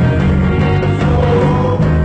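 Live band music led by an electric bass guitar playing held low notes that shift pitch a few times, with guitar playing above it.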